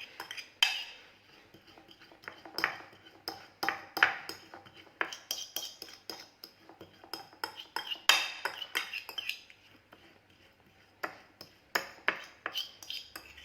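A metal fork repeatedly clinking and scraping against a dish in an irregular rhythm while mashing boiled garlic cloves and a little milk into a smooth paste.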